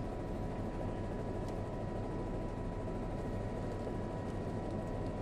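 Steady engine and rotor noise of a helicopter, heard from on board, with a faint steady high tone running through it.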